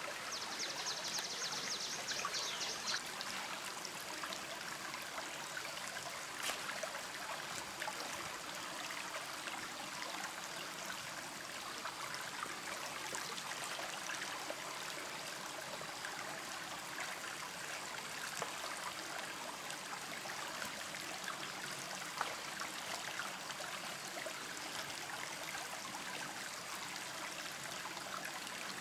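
Shallow stream flowing steadily over rocks. A bird gives a fast trill of repeated high notes in the first few seconds, and there are a couple of faint knocks of stone being set on stone.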